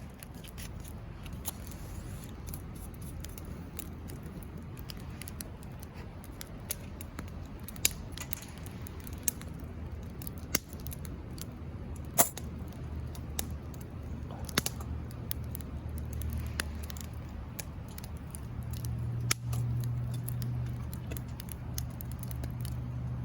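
Wood fire crackling, with scattered irregular sharp pops over a low steady hum.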